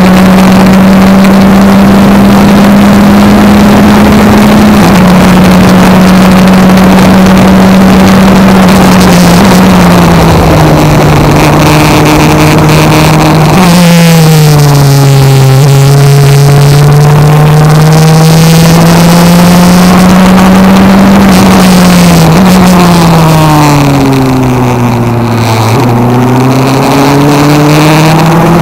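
Sports racer's engine heard from the open cockpit at racing speed, loud and steady at first. Its pitch drops abruptly about halfway through, then climbs slowly as it accelerates. It sinks again, slowing into a corner, and rises once more near the end.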